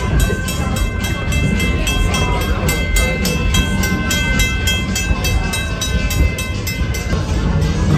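Railroad crossing signal bell ringing in quick, even strikes, with held ringing tones, over the low steady rumble of the train running past the crossing.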